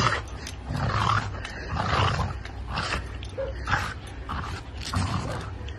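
A dog growling in short, repeated bursts, about one a second.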